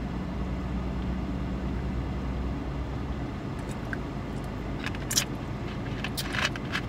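A man drinking soda from a plastic bottle over a steady low hum inside a car. About five seconds in come a few sharp clicks and crackles from the plastic bottle and its screw cap as it is handled and closed.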